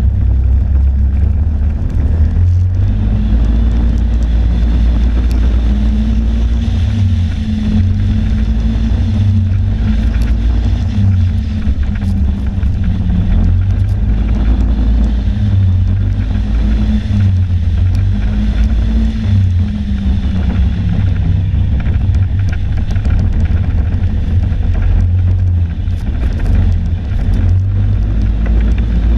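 Snowmobile engine running at a steady cruising pace, heard from on board, its pitch rising and falling a little, with wind rumbling on the microphone.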